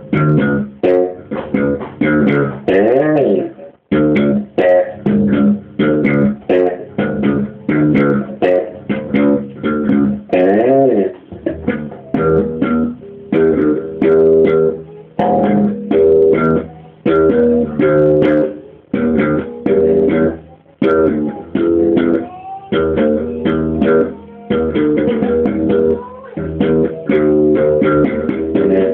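Electric bass guitar played slap style: a fast, busy run of percussive slapped and popped notes. Twice a note is bent back and forth in a warbling wobble, and there is a brief break about four seconds in.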